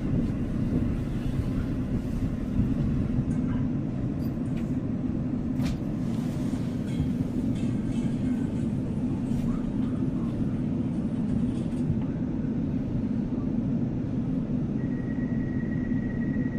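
Steady rumble of a passenger train running, heard from inside the carriage, with a few faint clicks. A steady high-pitched tone comes in near the end.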